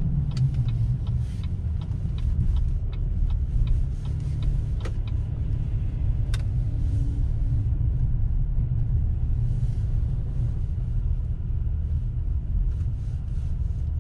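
Pickup truck driving, heard from inside the cab: a steady low road-and-engine rumble, with scattered light clicks and rattles over the first few seconds.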